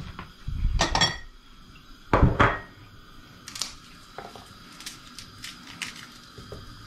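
Kitchen handling noises: a clatter with a ringing clink of dishes about a second in, then a heavier knock as the wall cupboard door shuts. After that come faint, scattered crackling clicks as a garlic bulb is broken into cloves and peeled by hand.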